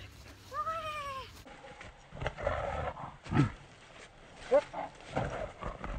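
Border collie vocalizing excitedly: a whine that rises and falls, followed by several short barks and yips, one dropping into a low growl-like woof.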